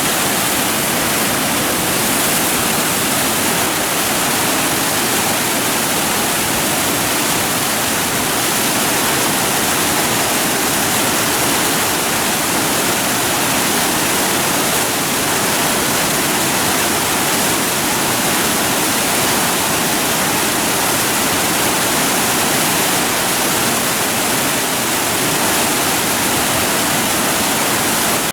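Rushing river water: a loud, steady, unbroken rush of white water.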